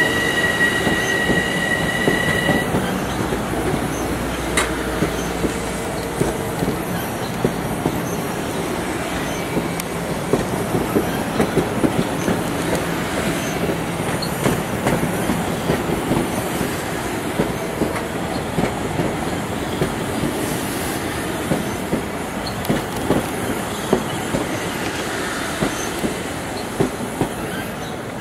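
Passenger train cars rolling past at close range, their wheels clattering rhythmically over the rail joints. A high, steady squeal stops about two and a half seconds in, and the clatter slowly dies away near the end as the train moves off.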